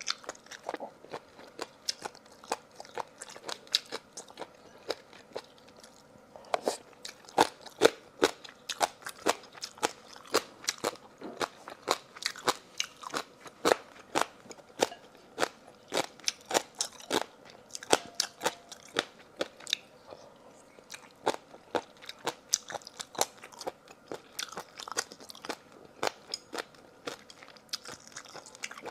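A person chewing and biting crunchy food close to the microphone: a quick, irregular run of wet crunches and clicks, busiest after the first few seconds.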